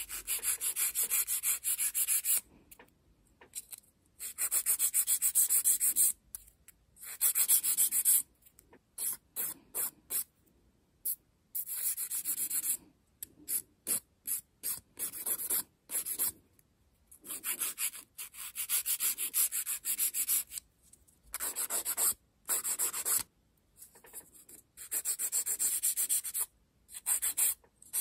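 A nail file scraping over a fingernail in quick back-and-forth strokes. The strokes come in runs of a second or two with short pauses between them.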